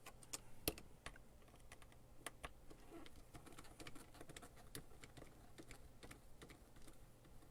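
Faint, irregular small clicks and ticks of a screwdriver turning out small screws from a plastic diffuser housing, with one sharper click under a second in.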